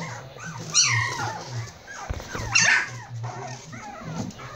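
Prague Ratter puppies yipping and whimpering in play: several short, high squeals that fall in pitch, with a low thump about two seconds in.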